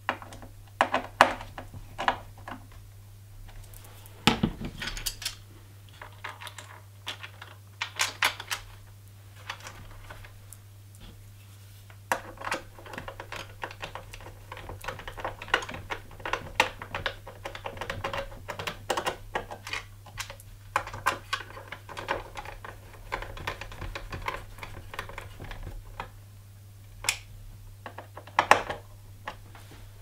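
Scattered small clicks, taps and rattles of a screwdriver, screws and plastic and metal parts being handled inside an opened iMac while an SSD and its bracket are secured. The clicking comes closer together through the middle stretch, over a low steady hum.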